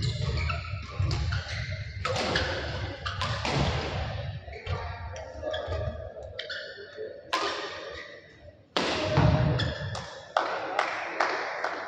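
Badminton rally: sharp, irregular racket hits on the shuttlecock mixed with players' footsteps thudding on the court.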